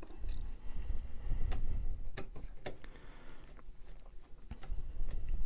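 Hands moving and pushing bundled wires around a 3D printer's control board: scattered light clicks and taps with low rustling and rubbing.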